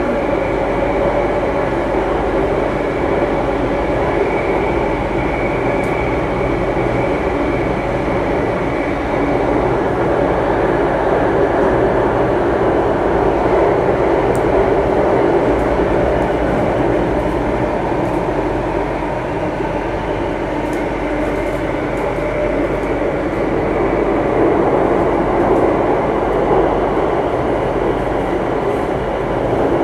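Singapore Circle Line MRT train running through an underground tunnel, heard from inside the carriage: a steady rumble and rush of wheels and motors that swells slightly a couple of times.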